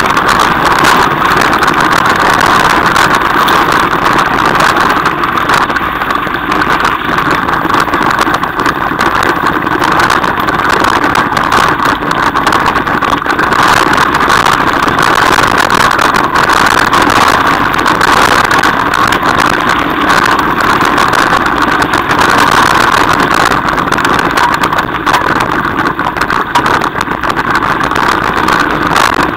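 Mountain bike rolling fast over a stony gravel track, heard through a bike- or rider-mounted camera: a loud, steady rush of tyre and wind noise with constant small knocks and rattles from the rough surface.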